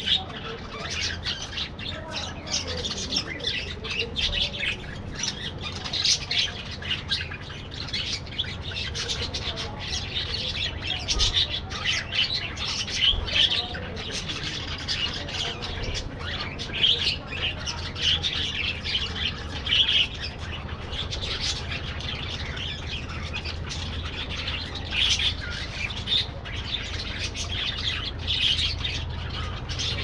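A flock of budgerigars chattering: many short, high chirps and squawks overlapping without a break.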